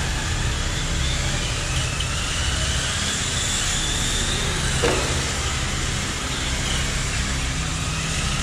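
Radio-controlled Tamiya cars racing on concrete, a steady hiss of motors and tyres with a high motor whine that rises in pitch as a car speeds up. One sharp knock about five seconds in.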